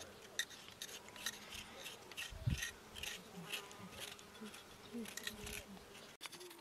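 Kitchen knives peeling raw potatoes by hand: short, crisp scraping cuts several times a second in an uneven rhythm. There is a dull knock about two and a half seconds in, and a faint buzzing hum underneath.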